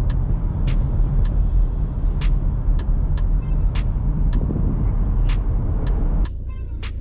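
Audi A4 Avant 40 TDI on the move: a loud, low rumble of road and wind noise with scattered sharp ticks. About six seconds in, the noise drops suddenly to a quieter, steady hum.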